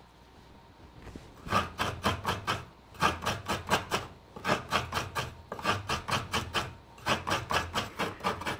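Fresh coconut being grated: a coconut half scraped against the serrated blade of a chirava coconut scraper in quick short strokes, about four a second, in runs with brief pauses. It starts about a second and a half in.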